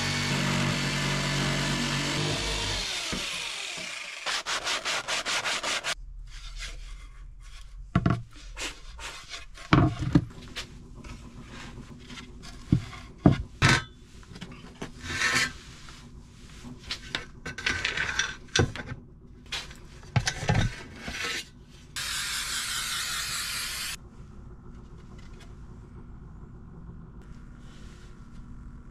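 Power drill running and winding down, then a short fast rattle, followed by scattered clicks, knocks and scraping of hands and tools working on a mount, with a burst of harsh rasping noise near the end.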